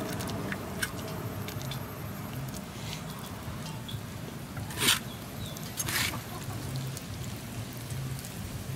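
Soft squishing and handling noises as moist spiced minced stuffing is packed by hand into a skinned rat, over a steady low background hum, with two short louder noises about five and six seconds in.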